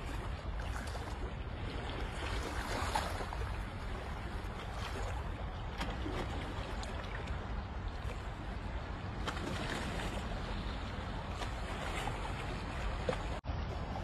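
Sea water sloshing and splashing, with wind rumbling on the phone's microphone. The sound cuts out for an instant near the end.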